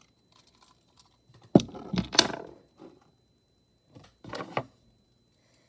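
Keychains being set down on a desk: a sharp knock about one and a half seconds in, a short jangling clatter right after, and another brief clatter near the end.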